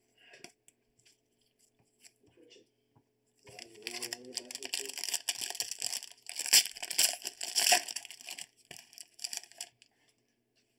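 A trading-card pack's wrapper torn open and crinkled by hand: a crackling tear starts about three and a half seconds in and runs for about six seconds.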